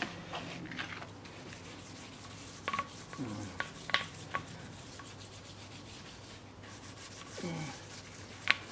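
Gloved hand scrubbing the face of an alloy wheel rim with a small scrubber and baking soda and lemon juice paste, a steady rubbing with a few light clicks and knocks.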